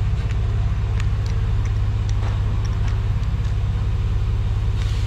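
A steady low mechanical drone with a fast even pulse, from machinery running in the shop, with a few light clicks and rattles as a drill bit is handled at a cordless drill's chuck.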